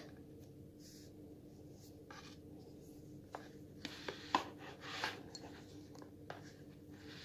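Light handling of a wristwatch on a leather strap and its cardboard presentation box: scattered small clicks and a short rustle, the sharpest click a little after four seconds in, over a faint steady hum.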